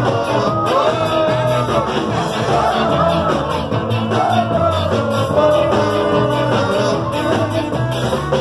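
A ska band playing live at full volume: electric guitars, bass and drums driving a steady beat, heard from among the audience.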